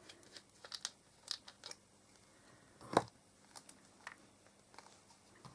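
Small clicks, ticks and light rustles of craft supplies being handled on a table, with one louder knock about three seconds in.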